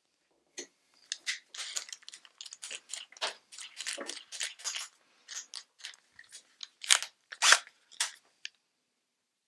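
Keyless chuck of a Makita cordless drill being turned by hand to fit a 10 mm drill bit: a run of short rasping clicks, the loudest two near the end.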